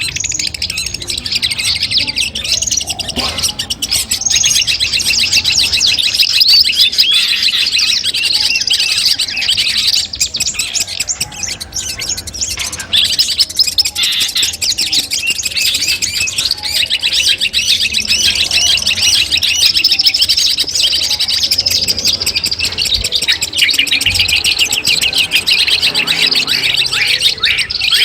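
Long-tailed shrike (cendet) singing a rapid, continuous song of quick, high chattering notes, with brief dips about ten and twelve seconds in.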